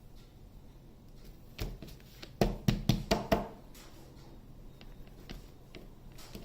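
Silicone cake mould being knocked and tapped to release a freshly microwave-baked cake: one knock, then a quick run of about five knocks within a second.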